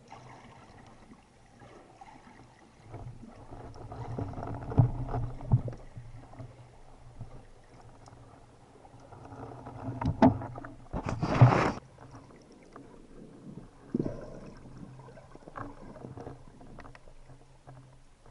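Water sounds picked up by a spearfisher's action camera: sloshing and muffled knocks over a low hum, with a short loud rush of noise about eleven seconds in.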